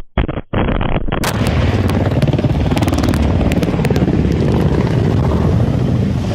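Distorted, dropping-out blast noise from a helicopter rocket strike in the first second. Then a loud, steady rumbling noise full of crackles and knocks from a phone carried by someone running through grass.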